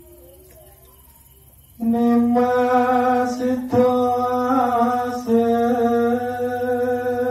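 A solo voice singing a Javanese kidung (devotional song), coming in about two seconds in and holding long, steady notes, with two short breaks for breath.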